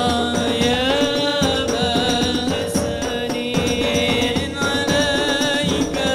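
Hadrah ensemble playing: a man chanting a devotional song into a microphone, amplified over a PA, over frame drums (rebana) and large bass drums beating a steady rhythm.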